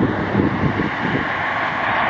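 Waterfall rushing steadily, with wind buffeting the microphone in low gusts.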